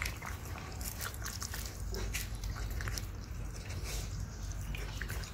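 A puppy eating wet cooked vegetables and rice from a stainless steel bowl, chewing with many scattered short clicks as its mouth and the food knock against the bowl.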